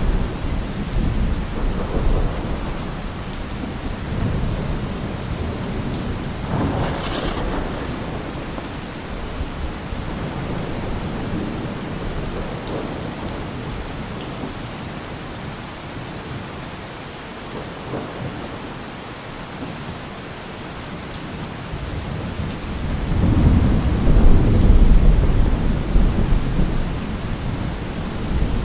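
Steady rain with rolling thunder. A short, sharper thunder crack comes about seven seconds in; after a quieter stretch, a loud deep rumble of thunder builds and rolls through the last few seconds.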